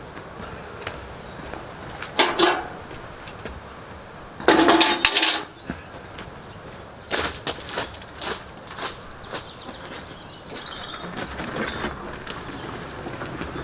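Broken concrete from an old footpath clattering and scraping as it is smashed up and moved, in separate bursts: one a couple of seconds in, a longer one near the middle, then a run of shorter knocks and a softer rustle near the end.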